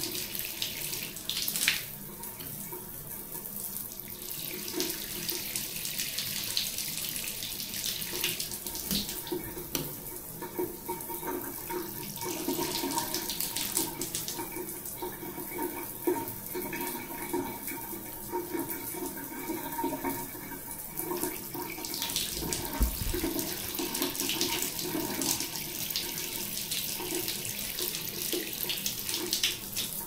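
Shower water running steadily, spraying and splashing onto a hand and the tiled wall.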